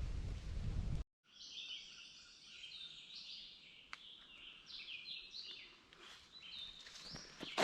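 About a second of wind rumbling on the microphone, then a sudden cut to songbirds singing: many short high chirps and quick descending trills. A single sharp knock comes near the end.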